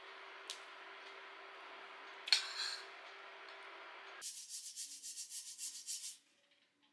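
Steady low room hum with a brief knock, then quick back-and-forth brushing or scrubbing strokes, about five a second, that stop abruptly after about two seconds.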